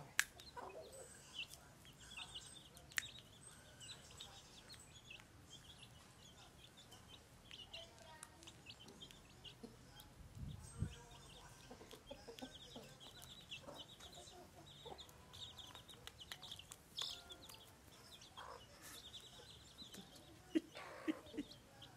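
Chicks peeping in quick runs of short high chirps, with a hen clucking low, more near the end, and a few sharp clicks.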